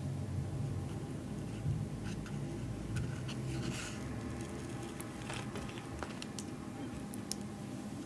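Faint crackles and ticks of a crispy fried taco shell being handled, scattered through the quiet and more frequent in the second half, over a low steady hum.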